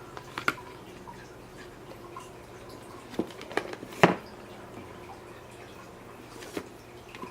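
Handling a board book and its reading pen: a few scattered light taps and clicks, the loudest about four seconds in, over a low steady hum.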